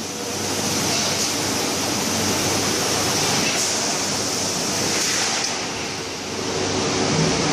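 Steel drum production-line machinery running: a steady mechanical noise, with a faint hum coming in near the end.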